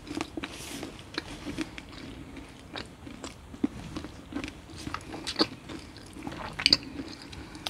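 Close-miked chewing gum: irregular wet smacks and small clicks of a mouth working the gum.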